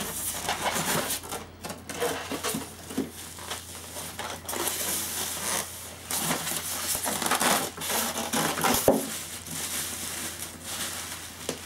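Bubble wrap and plastic packaging crinkling and rustling in irregular bursts as it is handled, along with polystyrene foam packing being moved.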